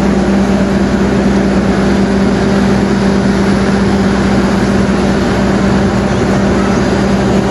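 KAI CC206 diesel-electric locomotive running as it moves slowly along the platform track: a loud, steady engine drone with an even hum that does not change.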